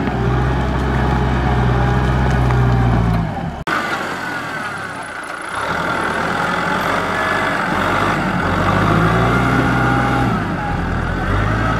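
Kubota M6040SU tractor's diesel engine running hard under load as it churns through deep mud. The engine sound drops abruptly about three and a half seconds in and builds back up a couple of seconds later.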